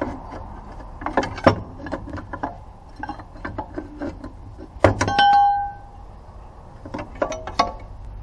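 Metal objects clinking and knocking in a series of separate strikes. About five seconds in, one strike rings out briefly with a clear metallic tone.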